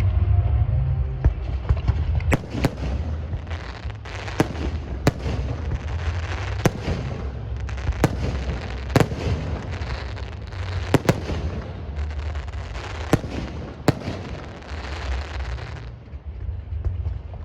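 Fireworks going off: about a dozen sharp, irregularly spaced bangs over a dense crackle, which stops a couple of seconds before the end, with a steady low rumble underneath.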